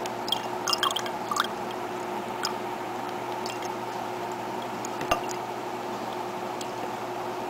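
Sparse water drips and small clicks over a steady hum and hiss, clustered near the start, with one sharper click about five seconds in.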